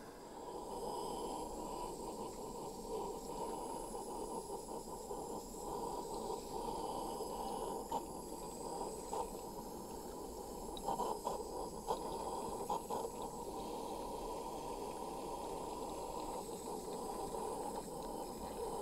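Small handheld butane micro torch burning steadily, its flame played on a glass jar to melt the old candle wax out of it. A few faint taps partway through.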